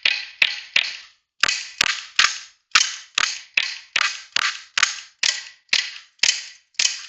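BB pistol fired in rapid succession, about sixteen shots at a bit over two a second, each a sharp crack with a short ringing tail, with a brief pause about a second in.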